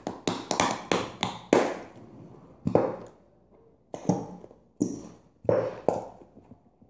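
Hands slapping the bottoms of upturned, nearly empty plastic glue bottles to shake out the last of the glue: a quick run of slaps, then single slaps about a second apart.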